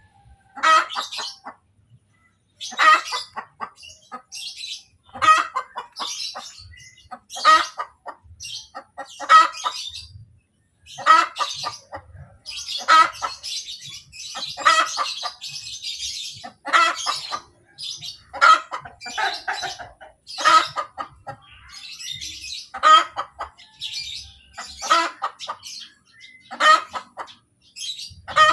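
Hen's egg-laying cackle: phrases of quick, sharp clucks repeated about every two seconds, the call a hen gives just after laying an egg.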